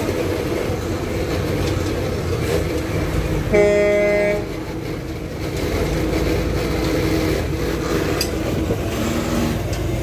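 Steady low street rumble with a vehicle horn honking once, a single pitched blast of just under a second, about three and a half seconds in.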